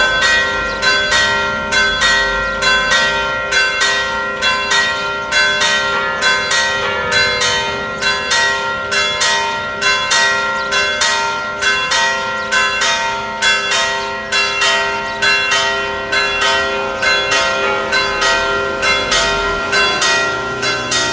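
Church bells pealing, struck in quick succession about twice a second, each stroke ringing on into the next.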